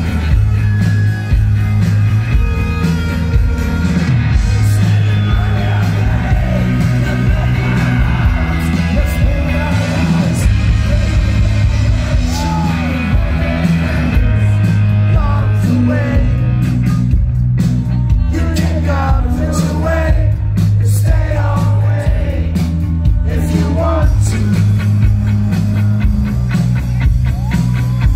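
Rock band playing live through a festival PA: electric guitars, bass guitar and drums, with a man's lead vocal singing over them through the middle stretch.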